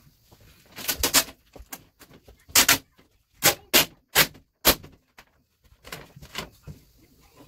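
A large sheet of black vinyl wrap film being handled and pulled off its backing paper, making a run of loud, short crackling rustles over a few seconds.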